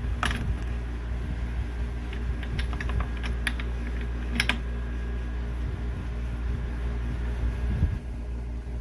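Light metal clicks and clinks of a tubular spark plug wrench being worked as a new spark plug is tightened into a string trimmer's engine, scattered clicks with the sharpest about a quarter second in and a few more around the middle, over a steady low hum.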